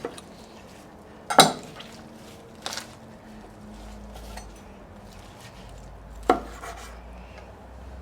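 Knife and utensils knocking against a cutting board while a smoked turkey is carved: three sharp clacks, the loudest about a second and a half in.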